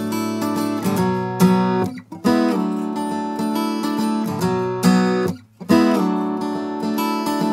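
Music: guitar chords strummed and left to ring, broken by short pauses about two and five and a half seconds in.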